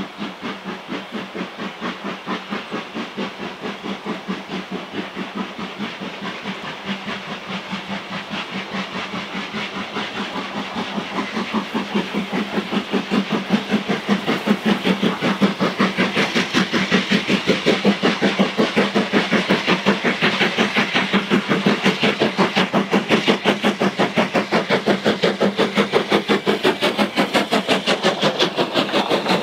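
LMS Jubilee class three-cylinder 4-6-0 steam locomotive No. 45596 'Bahamas' working a passenger train, its exhaust beating in a fast, even rhythm. The beat grows steadily louder over the first half as the engine approaches, then stays loud as it draws level near the end.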